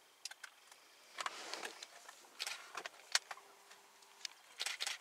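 African elephants feeding in dry bush: dry grass and twigs crackling and snapping as they are pulled, chewed and pushed through. A scatter of sharp crackles, with a longer rustle about a second in and a cluster of crackles near the end.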